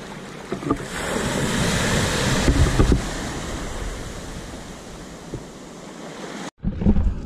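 Small waves washing up and draining back on a sandy beach, swelling about a second in, with wind rumbling on the microphone. Near the end the sound cuts out abruptly, then a short thump.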